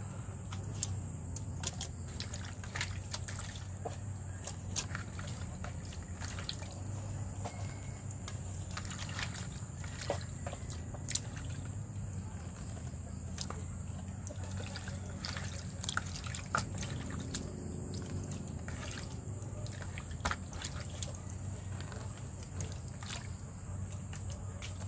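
Wet dripping and squelching of marinade as handfuls of marinated pork trotter pieces and vegetables are lifted from a bucket and packed into a bamboo tube, with many small scattered clicks and splashes.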